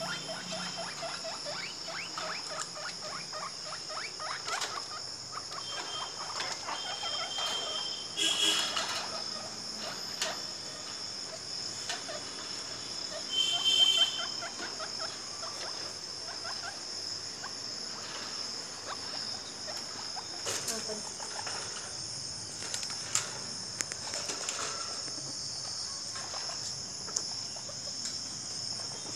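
Crickets chirping steadily in a high pitch, with a few short high squeaks from guinea pigs about 8 and 14 seconds in, the loudest moments, and light scattered clicks and taps.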